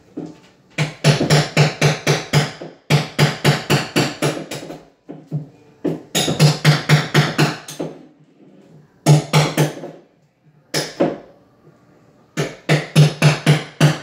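Rapid hammer-like strikes, about five or six a second, in bursts of one to two seconds separated by short pauses.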